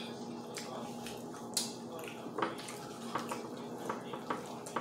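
Crispy fried chicken being pulled apart and bitten, giving several short, sharp crunches and crackles of the fried crust over a faint steady hum.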